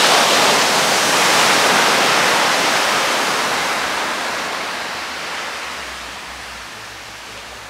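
Ocean surf: a big wave breaking against the rocky shore with a loud rushing surge that slowly fades as the water washes back.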